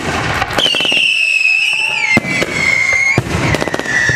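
Fireworks going off: rapid crackling pops, then a high whistling firework that falls slightly in pitch and lasts about two and a half seconds, followed by a second whistle near the end.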